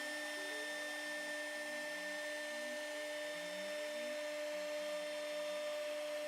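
CNC router running as it engraves composite decking: the spindle gives a steady whine, and under it the stepper motors' pitch keeps gliding up and down as the bit changes direction.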